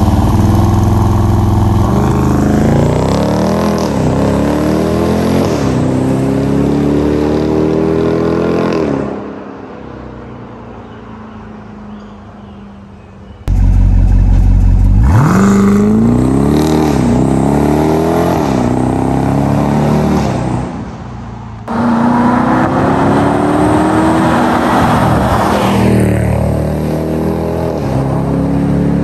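2022 Dodge Durango SRT's 6.4-litre Hemi V8 on its stock exhaust making full-throttle launches. The revs climb hard, and upshifts drop the pitch several times as it pulls away. After a quieter lull, another full-throttle pull from idle starts suddenly about halfway through and shifts up twice, followed by one more hard pull.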